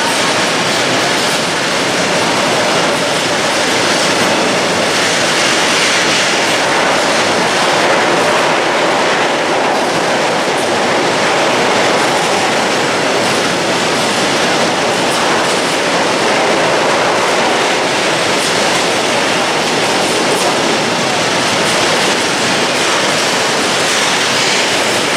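A freight train of tank wagons rolling steadily past, its wheels clattering over the rail joints.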